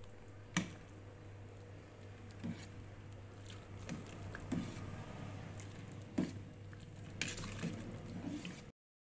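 A metal ladle stirring meatball soup in an aluminium pot, with soft sloshing of the broth and a few sharp knocks of the ladle against the pot, over a steady low hum. The sound cuts off suddenly near the end.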